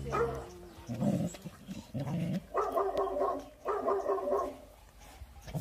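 A dog growling: three short low growls about a second apart, then two longer, higher vocal sounds held at a steady pitch.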